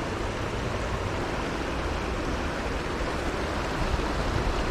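Steady rushing of water spilling over a small dam spillway into a creek, an even noise with a low rumble underneath.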